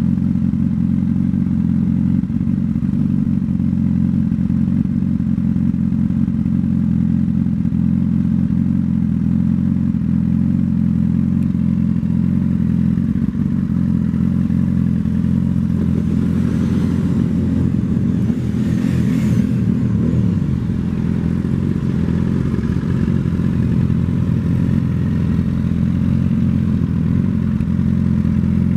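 2017 Honda CBR1000RR's inline-four engine idling steadily through an aftermarket M4 exhaust.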